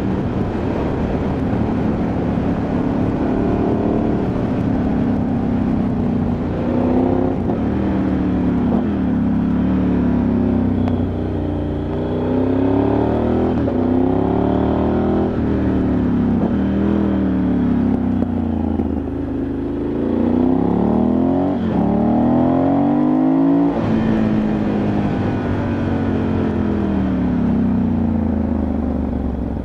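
Ducati Multistrada 1100S's air-cooled L-twin heard from on board while riding, the engine note repeatedly rising as it pulls and then falling back as the throttle closes or it shifts, over and over.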